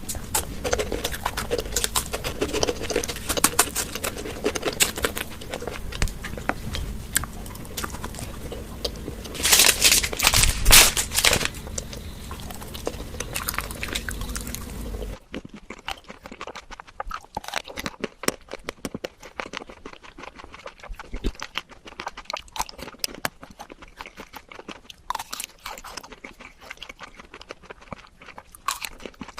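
Close-miked eating sounds: someone biting and chewing sweets, with crackly crunching and wet mouth clicks. There is a louder spell of crunching about ten seconds in. At a cut about halfway through, the steady background noise drops away and quieter chewing continues.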